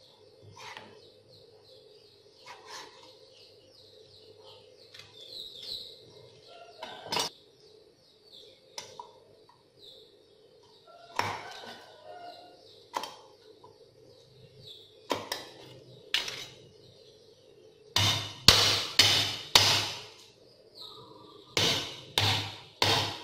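Cleaver knocking on a wooden chopping board: scattered single chops as pork is sliced, then a run of heavy blows in two quick bursts near the end as garlic cloves are struck.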